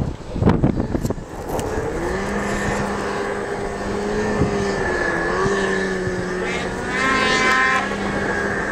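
Several snowmobile engines running, their pitch drifting up and down with the throttle, one revving higher and louder for about a second near the end. Wind buffets the microphone with low rumbles in the first second or so.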